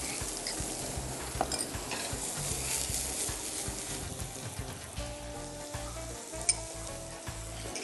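Diced onion and garlic sizzling in hot oil and butter in a pot, with a couple of light clicks from a utensil.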